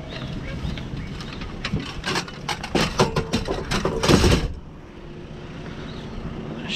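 Knocks and rattles of junk being handled. They come thick in the middle, then die down about two-thirds of the way through, leaving a faint steady hum.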